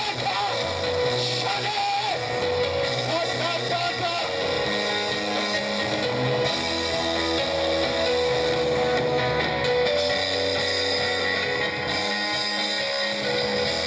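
Live worship band music with guitar and drums under long held chords.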